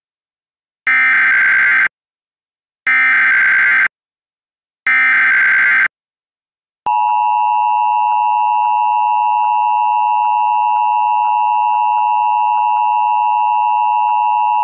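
Emergency Alert System activation. Three one-second bursts of SAME header data come about a second apart, each a harsh digital warble, and are followed by the steady two-tone EAS attention signal for about eight seconds, announcing a dust storm warning.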